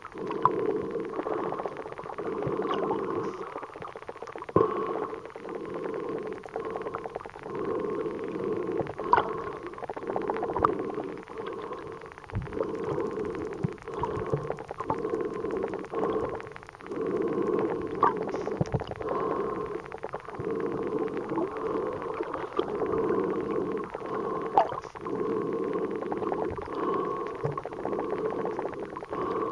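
Muffled underwater sound picked up by a submerged camera: a droning rush of water that swells and fades every second or few, with scattered sharp clicks and knocks.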